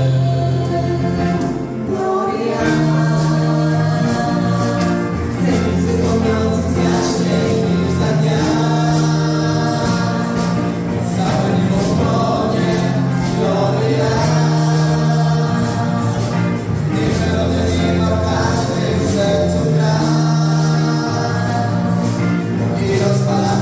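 A mixed group of teenage voices, boys and girls, singing a Polish Christmas carol through microphones, with piano accompaniment under sustained low notes and a steady beat.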